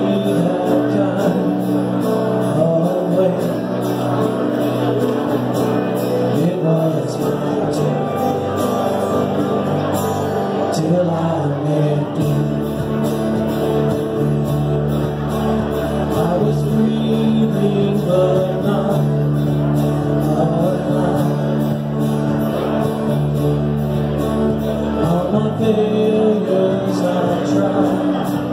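Live worship band playing a song, with voices singing along. A deeper low end comes in about twelve seconds in and thins out again near the end.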